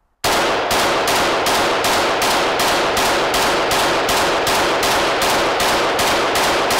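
Krebs AK-15, a 5.56 AK-pattern rifle, firing Wolf Gold .223 brass-cased ammunition in a fast, steady string of about four to five shots a second. The string begins about a quarter second in and runs without a pause or stoppage, so the rifle is cycling this ammunition reliably.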